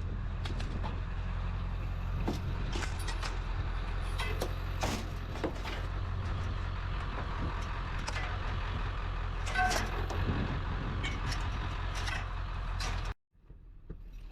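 Steady low drone of a motor vehicle driving along, with scattered clicks and rattles. The sound cuts off abruptly about 13 seconds in.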